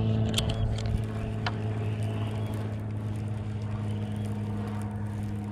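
Electric trolling motor humming steadily, with a couple of sharp clicks in the first second and a half.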